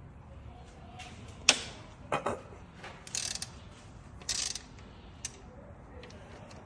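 Socket ratchet clicking in two short runs, with a few sharp single clicks and knocks, as a 10 mm connecting-rod cap bolt is worked loose.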